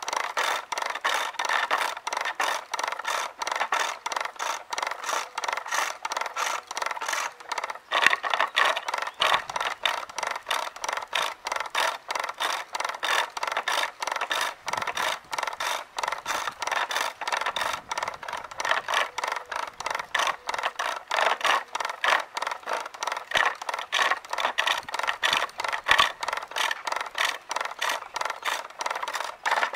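A large gouge cutting a maple blank on a pole lathe as it is roughed round. The cut comes and goes in a fast, even rhythm of short scraping strokes as the work spins back and forth.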